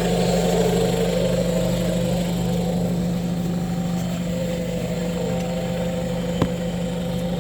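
Off-road vehicle engine running steadily, with a whine on top that wavers slightly in pitch. A single sharp click comes about six and a half seconds in.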